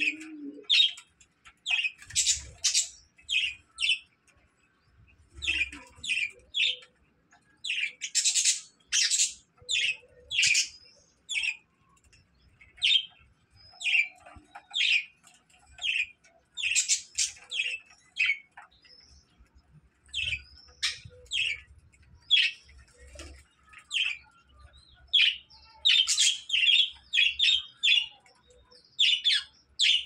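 Several budgerigars chirping: quick runs of short, high calls with brief pauses between the runs.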